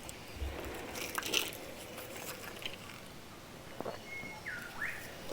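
Faint rustling, crinkling and light clicks of objects being handled, with a brief high squeak about four seconds in.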